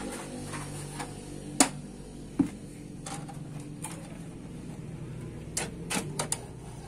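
Plastic parts of a Canon iR copier clicking and knocking as they are handled by hand inside the open machine, over a faint steady low hum. There is a sharp click about one and a half seconds in, a knock a second later, and a quick run of clicks near the end.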